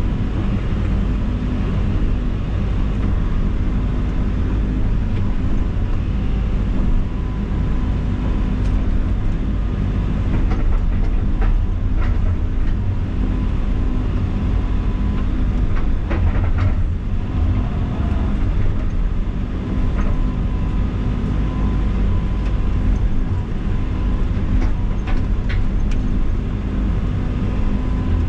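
Heavy equipment's diesel engine running steadily under load while clearing trees, with scattered knocks and clatter.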